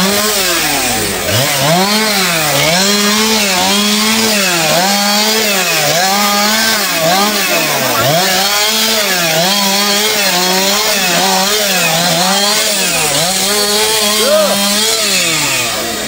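A chainsaw cutting through the trunk and branches of a felled tree. The engine note sags and recovers about once a second as the saw is worked into the wood, then drops away near the end.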